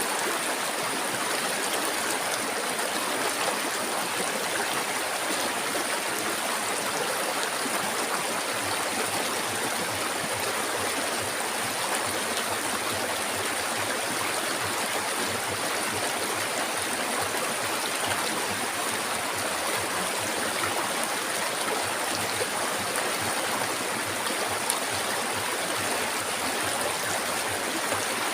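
Flowing river water, a steady even rush with no pauses or changes.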